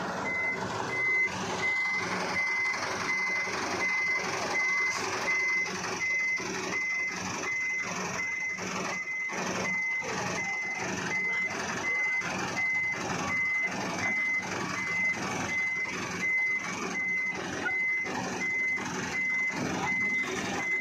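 Truck reversing alarm beeping at a steady high pitch, about two beeps a second, over the truck's engine running: the truck is backing up during the recovery pull.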